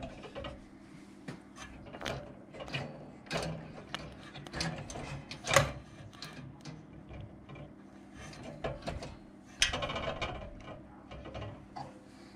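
Irregular small clicks and knocks of hands and a plastic oil bottle handling the metal fittings of a Wilesco D145 model steam engine as it is oiled, the two loudest knocks about five and a half and nine and a half seconds in. A steady low hum runs underneath.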